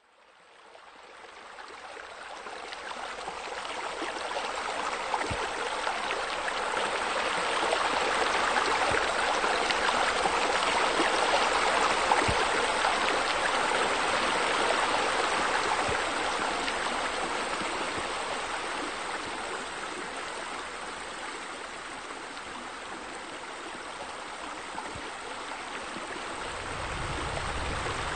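Steady rushing of flowing water, like a stream, fading in from silence over the first few seconds and holding on evenly.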